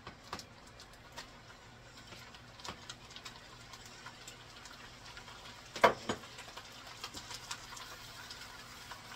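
Quiet kitchen handling as cubed Velveeta is tipped from a glass bowl into a pan of drained ground beef: soft, scattered taps, and one sharp knock about six seconds in.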